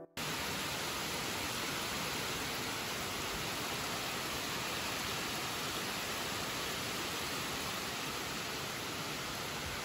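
Steady rain falling on trees and ground, an even hiss that begins abruptly just after the start.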